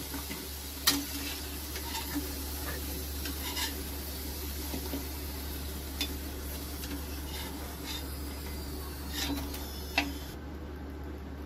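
Cornflour-coated potato wedges deep-frying in hot oil in an aluminium kadhai, a steady sizzle, while a perforated metal skimmer stirs and lifts them, clinking against the pan about five times. The sizzle's hiss dies down near the end as the last pieces come out.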